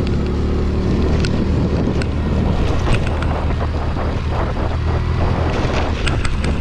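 Scooter engine running under wind rush on the microphone, with scattered clicks and rattles as the bike rides over a rutted dirt track.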